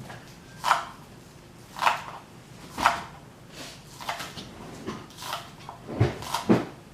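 Kitchen knife chopping green onions on a cutting board: single sharp cuts about a second apart, lighter taps in the middle, and two firmer cuts close together near the end.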